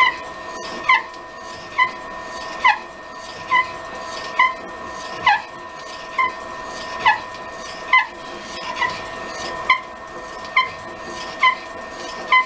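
Drill press running a fly-cutter into the bore of an ironwood neck bearing. A steady machine hum sits under a short squeak that falls in pitch and repeats very regularly, a little more than once a second.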